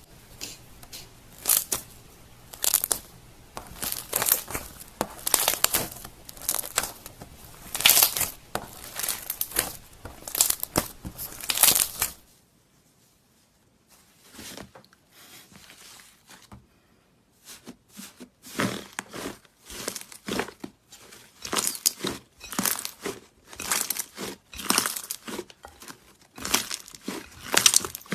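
Slime being squished and stretched by hand, making a run of crackling, popping sounds. It breaks off about twelve seconds in and picks up again about five seconds later.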